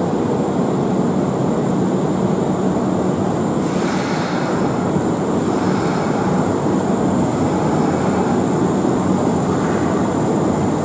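Kintetsu 6020-series electric commuter train pulling slowly into a terminal platform: steady rolling and running noise, with a short hiss about four seconds in.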